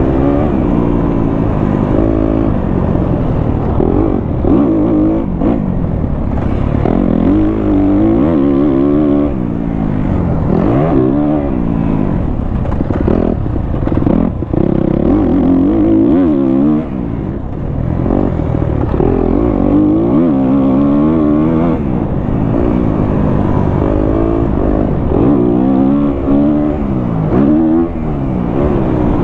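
Kawasaki KX250F four-stroke single-cylinder dirt bike engine through a Pro Circuit exhaust, revving hard and shifting while riding a motocross track: the pitch climbs and falls again every second or two as the throttle is opened and rolled off, with a short lift-off about halfway through.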